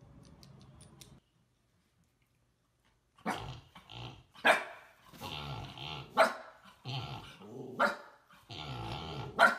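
A husky barking and grumbling at length, a string of short sharp barks mixed with longer growly calls that starts about three seconds in, after a short silence.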